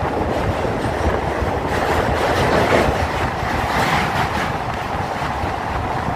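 Train running across a steel truss railway bridge: a steady loud rumble with the clatter of wheels on the rails, heard from just outside the carriage side.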